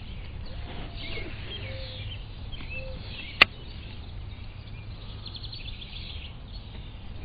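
Birds chirping and calling faintly over a steady low outdoor rumble, with one sharp click about three and a half seconds in.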